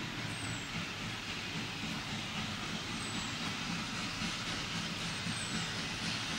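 Diesel locomotive running steadily at a distance, a low rumble. Three faint high descending chirps sound over it.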